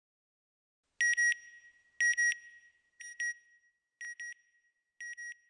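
Electronic double beeps from a logo sound effect: five pairs, one pair each second, starting about a second in. The first two pairs are loudest and the later ones fainter.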